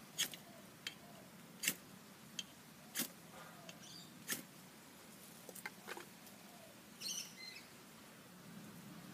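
A fire steel (ferro rod) struck by hand to light tinder: four sharp scrapes about a second and a half apart, with a few lighter ticks between them. A short high chirp comes about seven seconds in.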